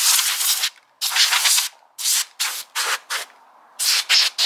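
Can of compressed air (air duster) sprayed in about eight short hissing bursts of varying length into a PlayStation 5's main system fan, blowing dust off the fan blades.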